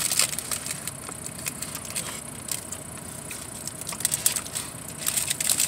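Paper burrito wrapper crinkling and rustling as it is handled, in irregular short bursts of crackle.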